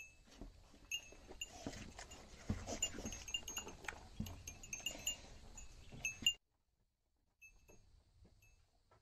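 Goat biting and chewing watermelon from a hand, a run of wet crunches and low thuds, with short high tinkling notes repeating over it. The sound cuts off abruptly about six seconds in, leaving only faint tinkling.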